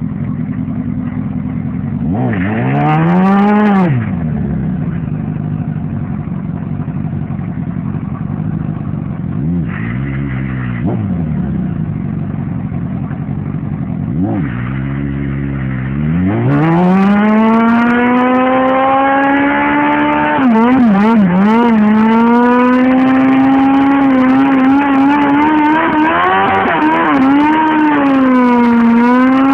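Honda CBR sport bike engine idling, blipped three times with quick rising-and-falling revs, then held at high revs for roughly the last thirteen seconds as the rear tyre spins in a burnout, the revs wavering up and down.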